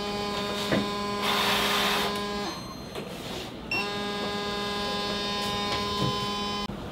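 Wall-mounted breathalyzer buzzing steadily during a pre-shift alcohol test, with a burst of breath blown into it in the middle of the first buzz. A short higher beep follows, then a second long buzz that cuts off near the end.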